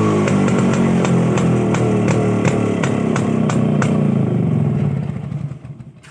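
Rajdoot 175 cc two-stroke single-cylinder motorcycle engine, revs falling steadily as the throttle is let off, with scattered sharp pops. The sound dies away about five seconds in.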